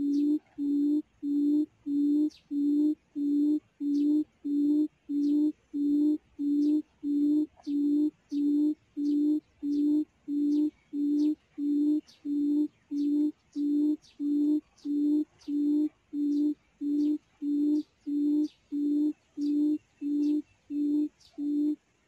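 Recorded quail call played through a loudspeaker as a lure at a trap: one low hoot repeated at an even pace, about three every two seconds, each hoot the same as the last.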